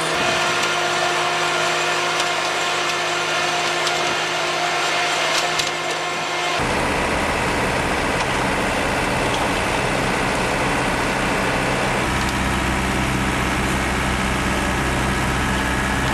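Slipform curb machine running steadily as it extrudes a concrete curb. About six and a half seconds in, this changes suddenly to the deeper, rumbling run of a small tracked curb machine and a concrete mixer truck feeding it concrete.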